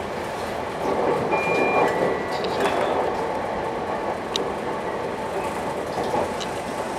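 Sotetsu commuter train running, heard from on board: a steady rumble of wheels on rail with a few clicks, the train held to 45 km/h under a strong-wind speed restriction. It grows louder about a second in, with two short high tones soon after.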